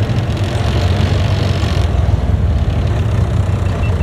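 A vehicle engine running steadily at an even pitch and level, low in tone.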